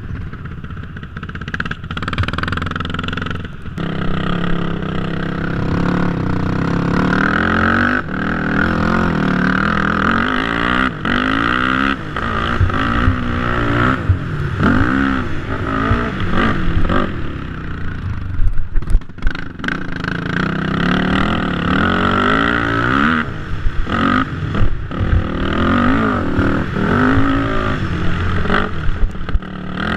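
Sport quad (ATV) engine revving hard and easing off again and again while riding through sand, its pitch climbing and dropping with the throttle. A few sharp, very loud clatters come about two-thirds of the way through.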